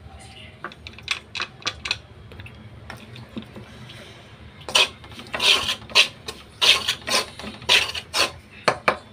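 A spoon scraping against a pan while stirring grated coconut into wheat flour. A few light taps come first, then from about five seconds in a run of louder scrapes, about two a second.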